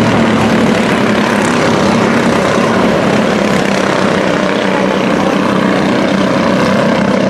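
Mini stock pickup race trucks running hard around a short oval, their engines making a loud, steady hum.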